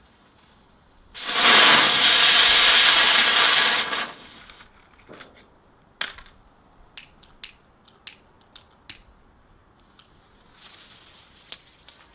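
Small consumer firework burning with a loud hiss for about three seconds, then about six sharp, irregular pops or cracks.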